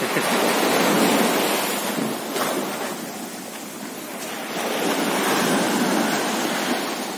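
Sea surf washing up on the shore in two swells, one at the start and a second past the middle, with wind buffeting the microphone.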